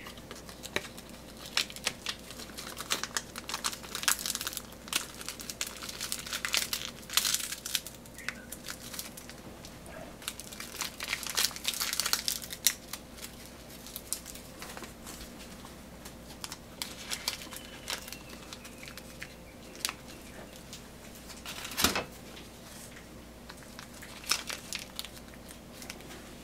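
Dry nori seaweed sheets crackling and rustling in the hands as they are wrapped around rice balls, in irregular quick crackles with a sharper snap near the end.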